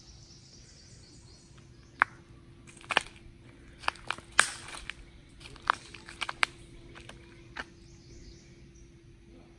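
Footsteps on a concrete walkway littered with twigs and leaves: about nine sharp, irregularly spaced crunches and cracks, loudest around the middle, over a steady low hum.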